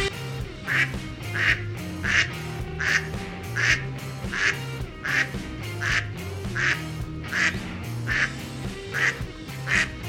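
A duck quacking over and over in a steady rhythm, about one quack every 0.7 seconds, over soft background music.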